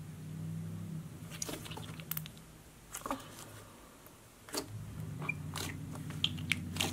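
Thick clear glitter putty being squeezed and pressed by hands, giving scattered sharp wet clicks and pops.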